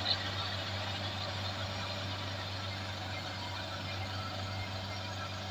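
Kubota combine harvester's diesel engine and machinery running steadily, a constant drone and mechanical hum, with one short knock right at the start.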